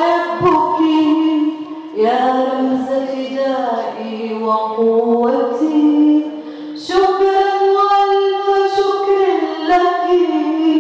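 A woman singing solo in slow, drawn-out phrases, holding long notes, with short pauses between phrases.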